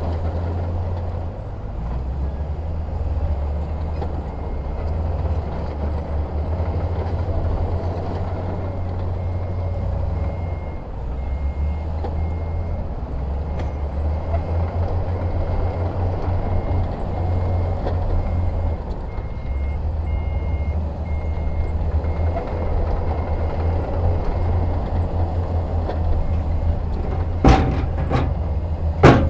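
Diesel engines of heavy earthmoving machinery running at a low, uneven rumble. A back-up alarm beeps at an even pace through the middle stretch, and there are two sharp clanks near the end.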